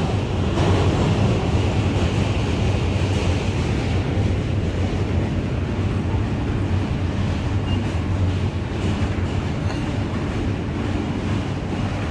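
A New York City subway Q train running over the Manhattan Bridge, heard from on board: a steady low rumble of wheels and car noise that holds at an even level.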